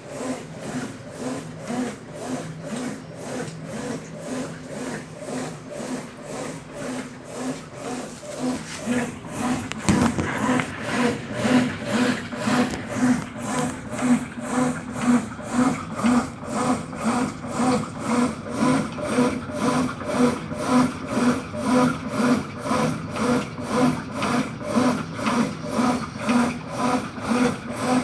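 Consul Facilite 10 kg top-loading washing machine running on test after a mechanical overhaul, its agitation giving a rhythmic pulse about twice a second. The sound gets louder about ten seconds in and keeps the same beat.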